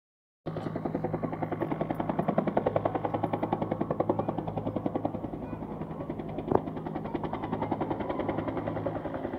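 Two-bladed helicopter flying low past, its main rotor making a rapid, even blade slap over a steady drone. The sound cuts in about half a second in, and a single sharp click comes about six and a half seconds in.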